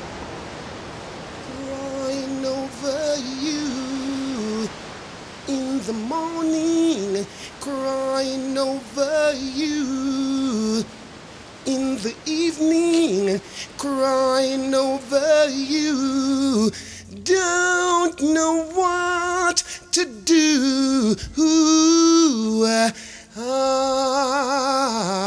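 A man's solo singing voice without accompaniment, in a slow soul-reggae style: long held notes in phrases broken by short pauses, with vibrato on the later notes. It begins after a second or so of soft hiss.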